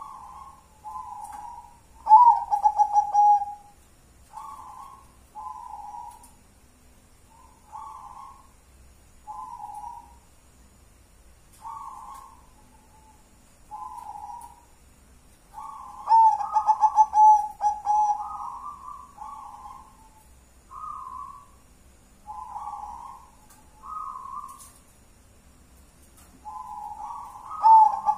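Zebra dove (perkutut) cooing: short, soft coos repeated about every second and a half, broken by three louder, longer rolling song phrases about two seconds in, around sixteen seconds in and near the end.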